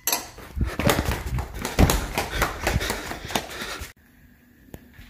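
Footsteps and handling noise as a person walks across a hard tiled floor holding a phone, uneven thumps for about four seconds. Then it drops to quiet, with one small click near the end.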